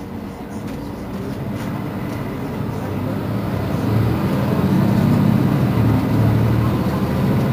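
Mercedes-Benz Citaro C2 city bus running while stopped, a steady low engine sound that grows louder about halfway through.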